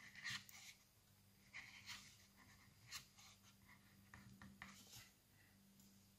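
Near silence with faint clicks and rubbing as fingers turn the red six-position speed-selector dial on a Hychika CS-190C circular saw that is not running. A faint steady low hum lies underneath.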